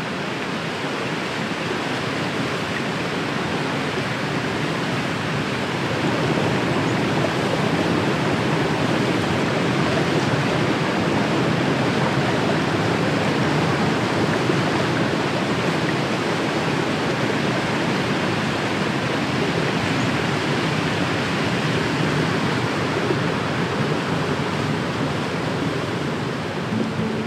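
Athabasca Falls roaring as the whole river is forced through a narrow rock gorge: a steady, even rush of falling water that swells a little over the first few seconds.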